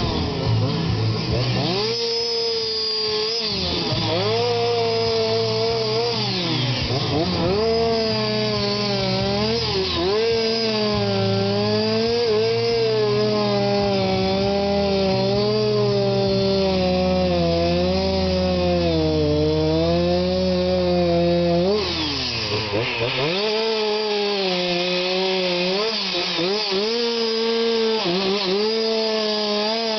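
Two-stroke chainsaw carving into wood, running under load with the engine speed sagging and picking up again several times, with a deep drop about two-thirds of the way through before it revs back up.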